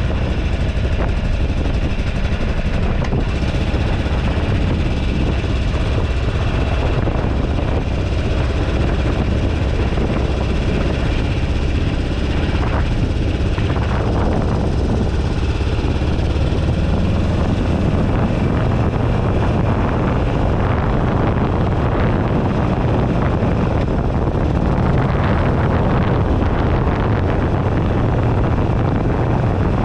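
Riding sound from a bar-mounted camera on a 2008 Buell Ulysses XB12XT motorcycle: heavy wind buffeting on the microphone over the steady running of its air-cooled V-twin engine and the road noise.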